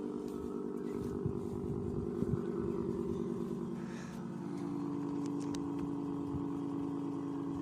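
Secomak GP8 electric siren sounding a steady tone at close range during its test. Its upper tone fades about halfway through while the lower tone carries on.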